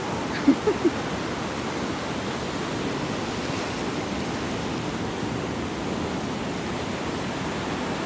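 Ocean surf breaking and washing up the beach, an even rush of noise throughout. Two short voice-like sounds stand out about half a second to a second in.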